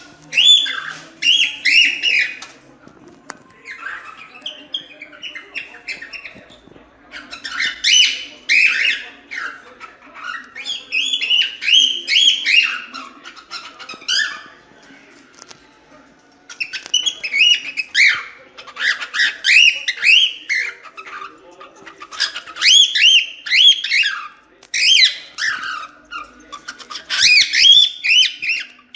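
Cockatiel singing: phrases of quick, chirpy whistled notes that glide up and down, broken by short pauses.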